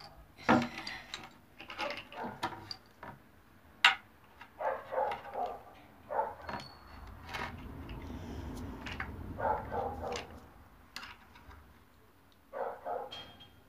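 Clicks and taps of small wooden pieces and a tool being handled, with a dog barking in several short runs.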